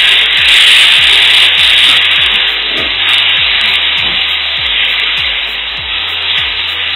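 Freshly added chopped onion, bell pepper and chilli sizzling loudly in hot oil in a pan while being stirred with a spatula. The sizzle slowly dies down.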